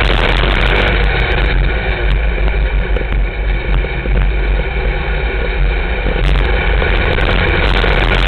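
Dirt-track sport modified race car's V8 engine running hard under racing load, heard loud from inside the cockpit. The loudness dips briefly about three to four seconds in, then comes back up.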